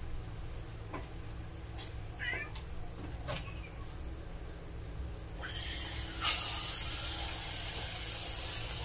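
A short cat meow over a low steady hum. About halfway through a steady hiss comes in, with a sharp click just after it.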